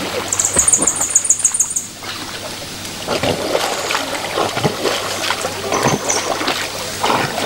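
Water splashing and scattered wooden knocks around dugout canoes being launched and paddled in shallow water. Near the start there is a high, rapid pulsed trill of about seven pulses a second, lasting a second and a half.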